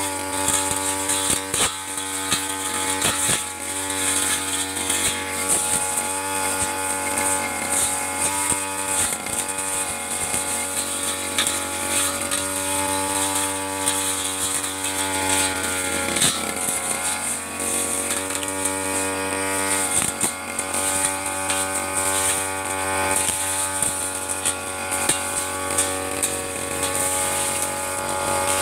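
Stihl 3001 two-stroke backpack brush cutter running at high revs, its large metal blade cutting through tall grass. The engine note dips briefly now and then as the blade bites into the growth, with occasional sharp clicks.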